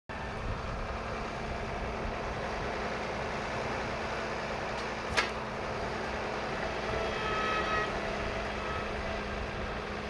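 Farm tractor engine running steadily as its front-end loader sets down a round hay bale, with a single sharp knock about halfway through and a brief whine a little later.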